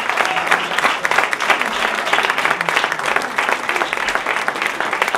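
Audience applauding: many people clapping in a dense, even patter.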